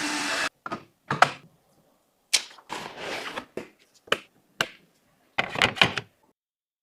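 A series of sharp clicks, taps and short rustles of computer parts being handled and fitted, each a separate snippet with dead silence between.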